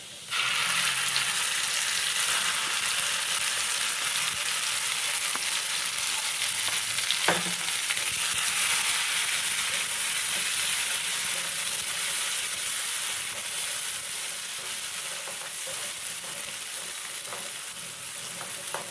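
Ground spice paste frying in hot oil with onions in a kadai, a loud steady sizzle that starts suddenly as the paste goes in, while it is stirred. A single sharp clink about seven seconds in.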